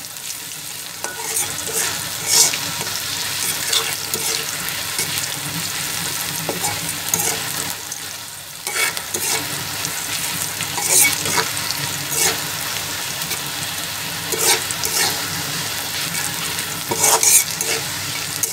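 Sliced onion, garlic and green chillies sizzling steadily in hot oil in a karahi, being fried toward golden for a tempering. A spatula stirs them, scraping the pan every second or few.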